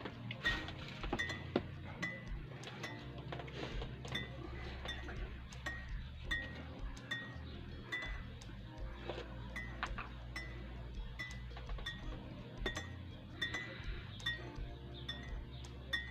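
Metal spoon stirring tea in a glass mug, knocking against the glass in a steady run of ringing clinks, a little over one a second.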